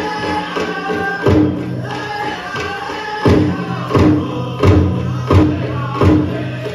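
A powwow drum group singing a chicken dance song over a steady bass drumbeat; about halfway through, the beats turn heavy and accented, roughly one every two-thirds of a second.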